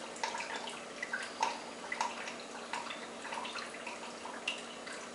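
Balsamic vinegar dripping from an upturned bottle into a small glass measuring cup: irregular drips landing, several a second.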